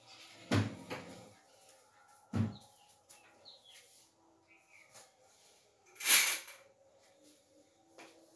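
Household handling sounds: two dull knocks about two seconds apart, then a brief rustle or scrape about six seconds in, as things are moved about on a wooden dresser.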